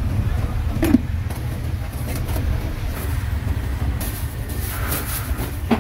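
Steady low rumble of street traffic, with two sharp knocks, one about a second in and one near the end.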